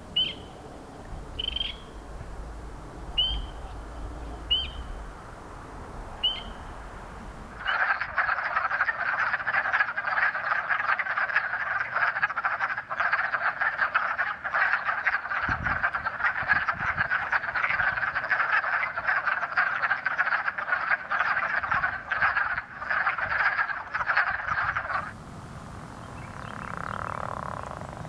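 Frogs calling: first a series of short, high single calls about once a second, then, from about eight seconds in, a dense chorus of many frogs calling over one another that stops abruptly some seventeen seconds later.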